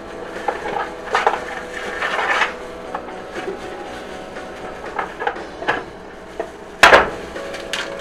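Eggs being cracked against the rim of a mixing bowl and broken open into dry cake mix: a run of light taps and knocks, with one sharp, loud crack of shell about seven seconds in.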